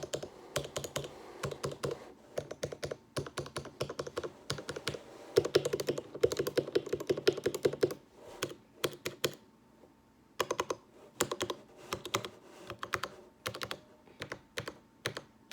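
Typing on a gaming keyboard, with irregular runs of sharp key clicks. A fast, loud flurry comes midway, followed by a short pause and then shorter bursts of keystrokes.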